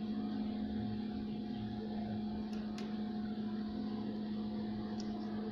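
A steady low electrical hum, with a couple of faint clicks a little past the middle.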